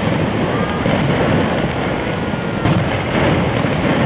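Aerial fireworks bursting, with booms and crackle over a steady rushing noise, and a couple of sharper bangs near the end.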